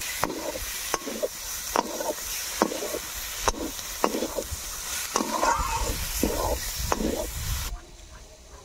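A wooden spatula stirs and scrapes prawns through frying masala in a metal karai, the oil sizzling, with the spatula knocking against the pan about once a second. The stirring and sizzling cut off abruptly near the end, leaving quieter background.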